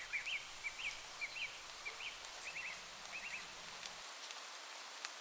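A small bird chirping in short, quick notes, about two a second, that stop about three and a half seconds in, over a steady faint hiss of light rain with scattered drip ticks.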